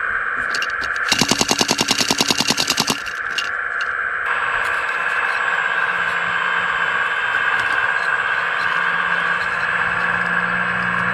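Hydraulic pump of a radio-controlled scale construction machine whining steadily. About a second in, a rapid clatter of about ten strikes a second runs for roughly two seconds, and from about five seconds a lower hum joins the whine.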